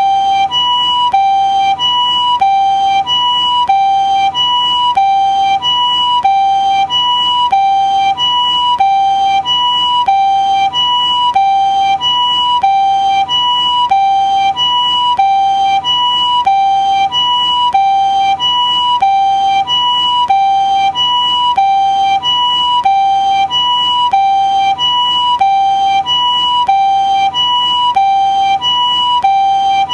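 Japanese ambulance two-tone siren, the "pee-poh" call, alternating evenly between a higher and a lower tone, each held a little over half a second, and repeating without change.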